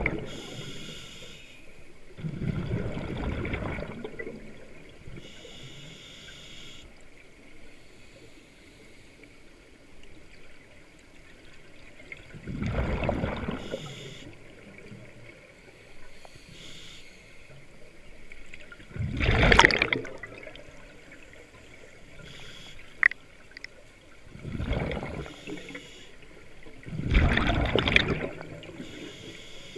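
Scuba regulator underwater: five bursts of exhaled bubbles a few seconds apart, with fainter hiss between them. One sharp click about three-quarters of the way through.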